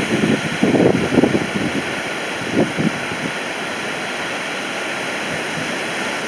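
Surf breaking on a sandy beach, a steady hiss of waves, with wind buffeting the microphone in gusts in the first three seconds, strongest about a second in.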